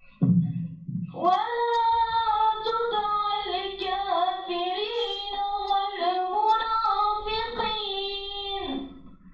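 Children's vocal group singing a long, melismatic phrase in unison. It starts after a short low thump and fades out near the end.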